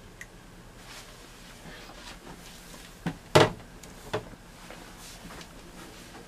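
Shower hose and hand-held shower head being handled against a plastic RV shower stall: three short knocks a little after three seconds in, the middle one the loudest, over a low steady background.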